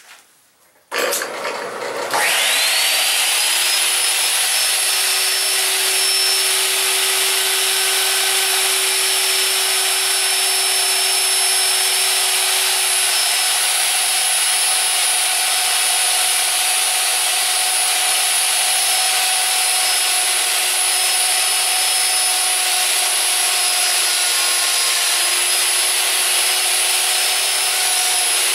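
Handheld wood router on a lathe bat duplicator starts about a second in, whines up to full speed, then runs steadily at a high pitch while cutting into the turned wooden bat blank.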